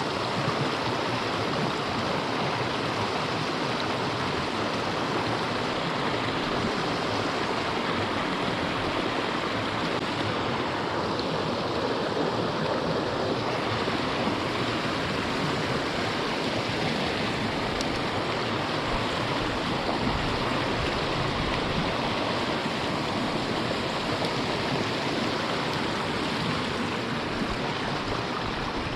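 Creek water running steadily over a riffle, an even wash of noise.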